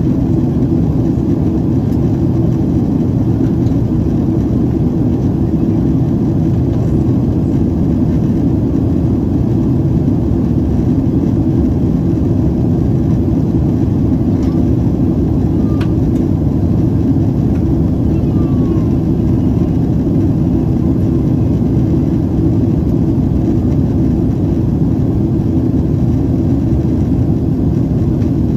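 Steady in-flight cabin noise of a Boeing 767-400: the low rumble of its General Electric CF6 turbofans and the rush of airflow, heard from a window seat over the wing.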